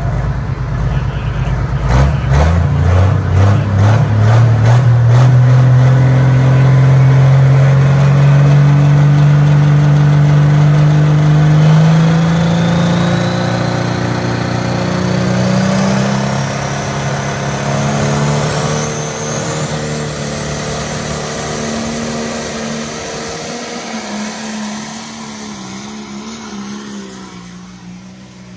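Turbocharged diesel engine of a John Deere pro stock pulling tractor revving up hard about two seconds in and running flat out through a pull, its pitch climbing slowly, with a high whistle rising in pitch over the middle of the run. It fades near the end as the tractor gets farther away down the track.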